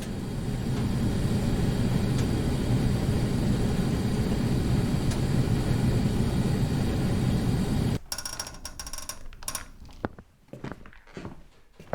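A steady low rumble that fades in, holds for about eight seconds and then cuts off suddenly, followed by a few faint scattered clicks and knocks.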